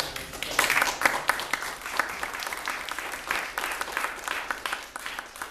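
Audience applauding: many people clapping, starting about half a second in and continuing throughout.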